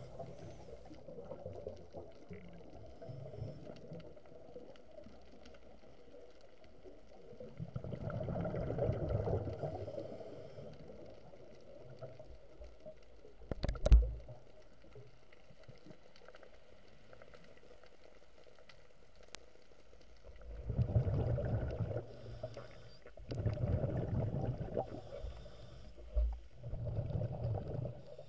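Scuba diver's exhaled breath bubbling out of the regulator, recorded underwater. There are four bursts of bubbles, each one to two seconds long, with quiet hiss between them, and a single sharp knock about halfway through.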